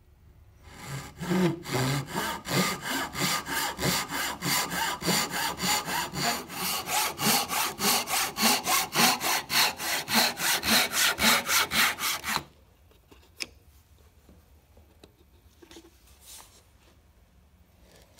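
Japanese handsaw crosscutting a bark-covered stick by hand, with quick, regular strokes of about four a second. The sawing stops abruptly after about twelve seconds, followed by a sharp click and faint handling sounds.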